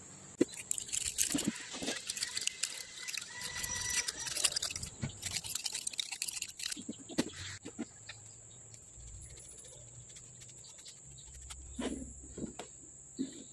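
A hand file scraping and clicking in irregular strokes over a weld bead on a steel hydraulic shaft, cleaning and levelling the weld. The strokes are dense for the first seven seconds or so and then become sparse. Crickets chirp steadily in the background.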